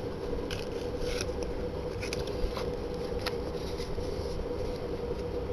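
Light scrapes and clicks of items and packaging being handled, a few short ones scattered through, over a steady room hum.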